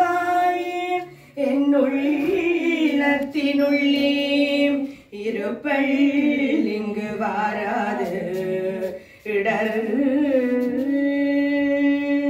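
Unaccompanied female singing of a Hindu devotional hymn, in about four long held phrases with short breaks between them.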